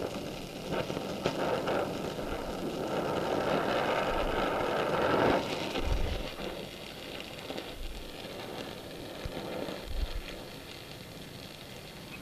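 Oxy-acetylene welding torch flame hissing steadily while it melts steel at the weld. It is louder for the first few seconds and softer from about six seconds in.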